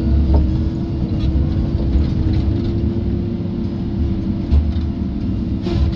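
Tigercat tracked feller buncher running steadily, heard from inside its cab: a heavy low engine rumble with a steady whine held at one pitch, and a few faint knocks.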